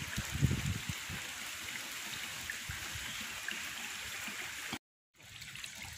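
Steady sound of running water at a fish pond, with a few small splashes in the first second. The sound cuts out briefly about five seconds in.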